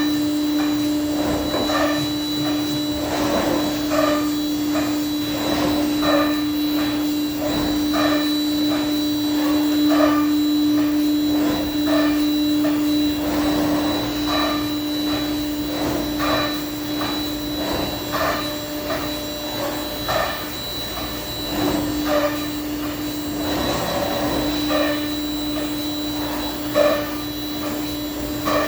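Thermwood CS-45 CNC router running: a steady spindle whine with a constant hum underneath, broken by frequent short, irregular noises of the machine at work.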